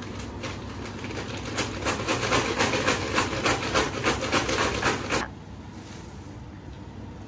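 A paper bag holding Skittles being shaken hard: crinkling paper and candies rattling inside, louder after about a second and a half, stopping suddenly about five seconds in.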